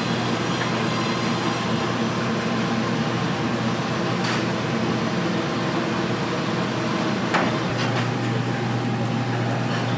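Steady mechanical noise with a constant low hum, and two short sharp clicks about four and seven seconds in.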